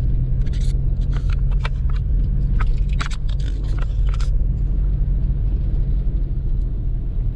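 A car driving along a town street, heard from inside: a steady engine and road rumble with a low hum. Through the first half there is a scatter of small clicks and rattles.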